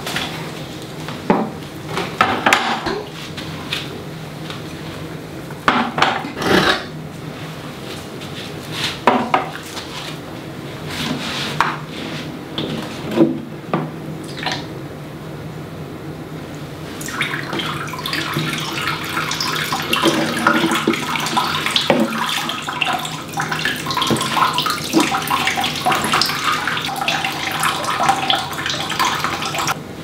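Scattered knocks and taps of plant pots and a plastic watering can being handled, then, a little over halfway through, a steady pour of water from the plastic watering can onto a potted plant's soil.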